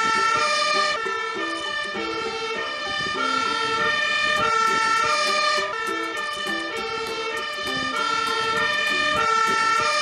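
Fire engine siren sounding continuously, its pitch stepping back and forth between tones.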